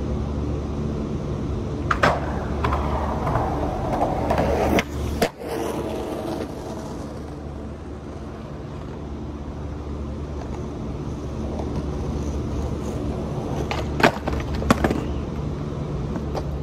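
Skateboard wheels rolling on concrete in a steady rumble, with a few sharp clacks of the board hitting the ground, one about two seconds in, another near five seconds, and two close together near the end.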